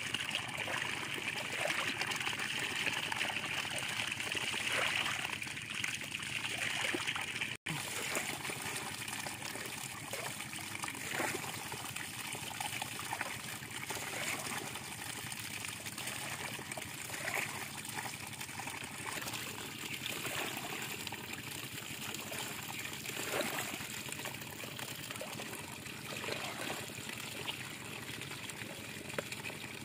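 A stream of water pouring steadily through a gap in a mud bank and splashing down into a woven bamboo basket full of small fish. The sound cuts out for an instant about a quarter of the way in.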